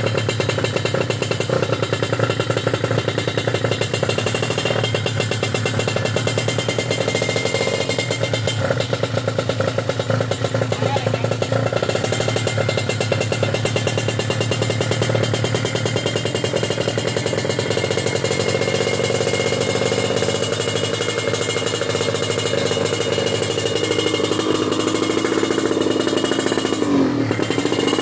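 Tuned Kawasaki Ninja 150 two-stroke single-cylinder engine, bored out to 155, running steadily through a Fantera racing exhaust.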